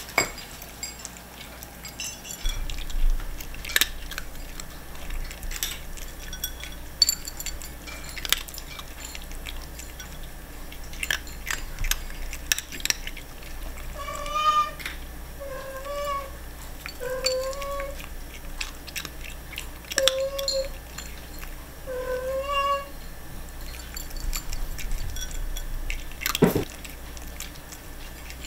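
A tabby cat eating dry kibble from a plate, with sharp crunching clicks as it bites. From about halfway through, it gives a series of short, high, mewing calls between bites.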